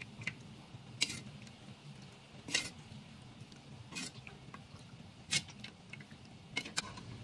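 Metal ladle clinking against an aluminium pot and the rim of a plastic tea strainer while tea is ladled and poured through the strainer: about seven short sharp clinks, roughly one every second or so, over a faint steady background.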